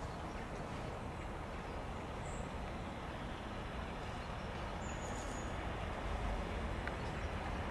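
Class 37 diesel locomotive's engine rumbling as it approaches, getting louder about six seconds in. A bird chirps briefly.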